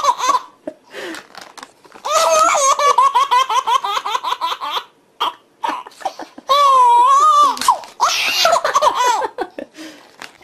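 Baby laughing hard: long fits of rapid, high-pitched belly laughs, with a few short pauses between them.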